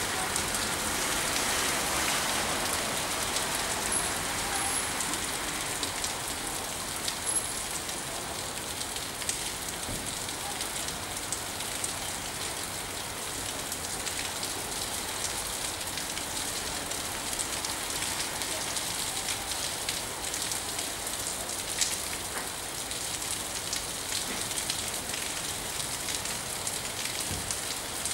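Steady rain falling: an even hiss with many separate drops ticking through it, one sharper drop about two-thirds of the way through.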